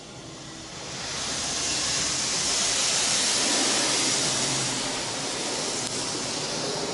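Water spray from an automatic car wash's moving arm hitting the car's windshield and side window, heard from inside the car as a loud steady hiss. It builds about a second in as the arm passes the driver's side and eases slightly near the end.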